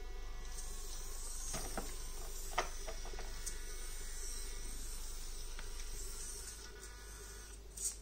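Micro RC crawler's small N20 gear motor whining steadily as the truck drives, with a few sharp clicks early on from the drivetrain or tyres on the rocks. The whine drops off shortly before the end, with a single click just before it closes.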